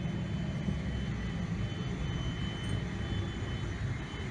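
Steady low rumble inside the cabin of a Boeing 777 airliner on the ground after landing, its engines running, with a faint high, even whine over it.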